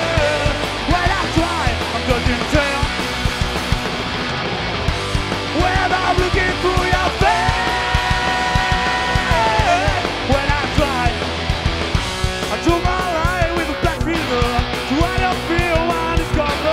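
Rock band playing live: electric guitar and drums with a sung vocal line, and one long held note in the middle.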